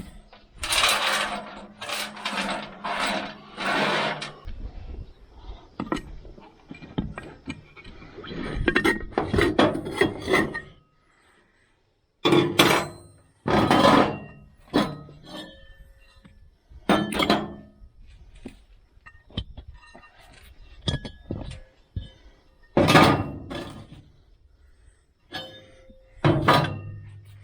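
An impact wrench running in four short bursts, undoing the bolts of a two-piece loader wheel rim. This is followed by separate metallic clanks and knocks as the rim parts and tools are handled.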